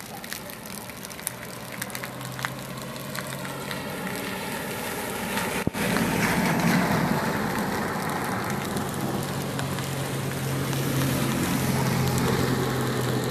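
A car driving past on a rain-soaked road, its engine humming steadily and its tyres swishing through standing water, louder from about six seconds in, over the steady patter of rain.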